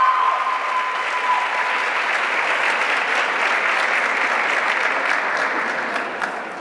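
Audience applauding in an auditorium, a steady patter of many hands that dies away near the end.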